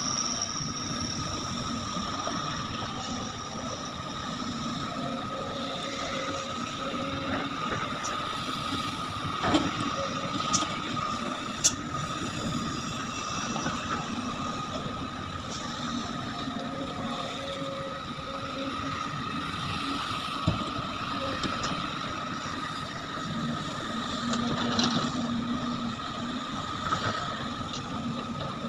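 Excavator loading nickel ore into a dump truck: a steady diesel engine sound with a constant high tone over it. A few sharp knocks, about ten, twelve and twenty seconds in.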